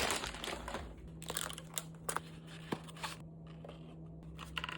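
Paper French fry packets rustling and crinkling as they are handled, with scattered light taps and clicks.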